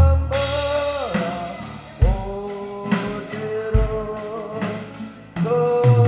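A man singing while strumming an acoustic-electric guitar, with a boy playing along on an electronic drum kit. The sung notes are held about a second each with short breaks between phrases, over steady drum hits.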